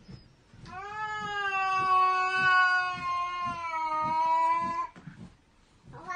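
A cat yowling: one long drawn-out call of about four seconds at a steady pitch that sags slightly before it stops, with a second yowl starting near the end.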